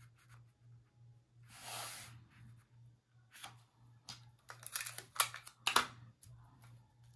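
Clear tape being pulled off a desktop dispenser and torn, with paper rustling as sheets of scrapbook paper are handled and taped together. A soft hissing pull about one and a half seconds in, then a run of crackles and sharp snaps, the loudest near the end.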